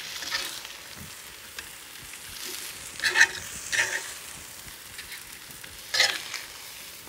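Marinated chicken sizzling steadily on a hot ridged grill pan, with a few short scrapes and clacks of metal tongs about three seconds in, again shortly after, and once more about six seconds in as pieces are dipped in the marinade and turned.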